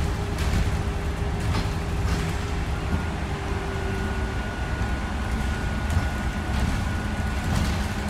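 City bus engine and road noise heard from inside the moving bus: a steady low rumble, with a faint high whine that comes in about three seconds in.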